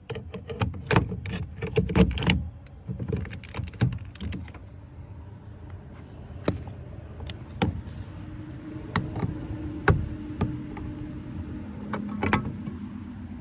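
Clicks, knocks and light metallic rattles from tools and screws being worked out of a truck's door trim panel, busiest in the first few seconds, with a faint hum under the later part.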